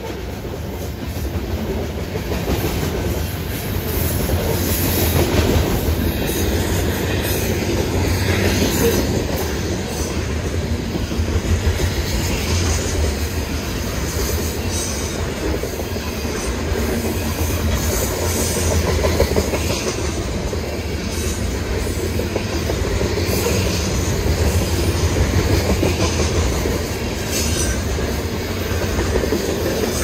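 Freight train rolling past: the grain train's cars give a steady loud rumble with the wheels clacking rhythmically over the rail joints, and from about six seconds in a faint high wheel squeal rides on top.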